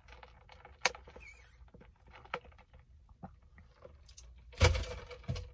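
Sipping an iced drink through a straw from a plastic cup, with small clicks of ice shifting in the cup. There is a louder handling thump about four and a half seconds in.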